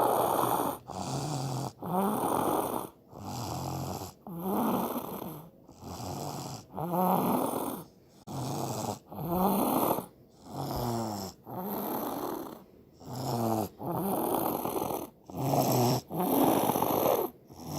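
A one-year-old child snoring heavily in sleep, like a grown man, with a snore about every second and a quarter in a steady rhythm. Some snores carry a short rising buzz.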